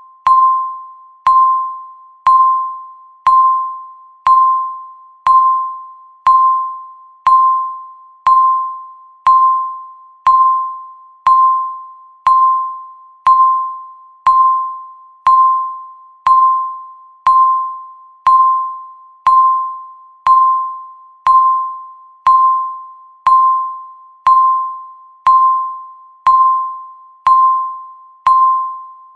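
Countdown timer sound effect: one pitched electronic ding once a second, each fading out before the next, ticking off the seconds.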